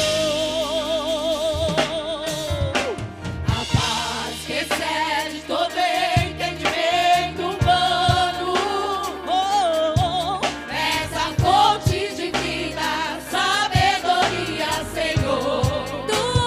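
Gospel worship song performed live: singing voices holding long notes with vibrato over a band with drums.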